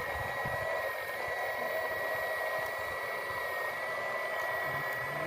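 Steady high whine of a small electric motor over a hiss, its pitch wavering slightly.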